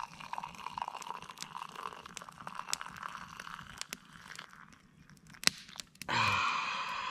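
Just-boiled water pouring from a camp pot into a mug, a steady splashing stream, while a wood campfire crackles with sharp pops. About six seconds in, a louder rushing hiss takes over.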